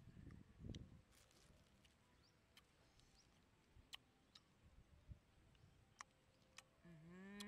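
Near silence with scattered faint clicks as small wild fruits are cracked and peeled by hand. A short spoken or hummed sound from a boy's voice starts near the end.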